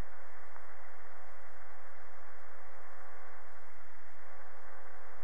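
Steady radio static from a 2 m amateur repeater rebroadcast with the channel open and nobody transmitting: an even, thin, telephone-like hiss with a few faint steady tones underneath.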